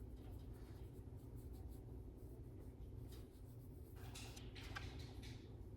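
Quiet room tone: a steady low hum, with a few faint soft clicks and rustles a few seconds in.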